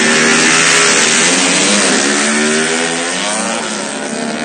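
Yamaha Exciter 150 motorcycle engines running loud and being revved, the pitch rising and falling several times, with a rough, noisy exhaust note.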